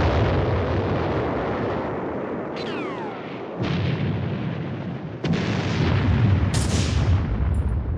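Battle sound effects: a series of heavy explosion blasts with rumble between them. One blast about three and a half seconds in is preceded by a falling whistle, like an incoming shell.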